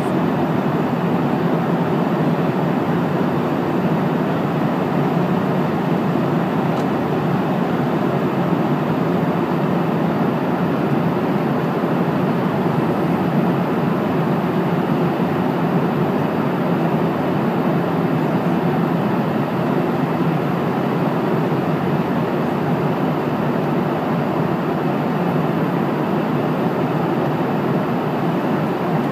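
Steady roar of airflow and engines inside an airplane cabin in flight, even and unchanging throughout.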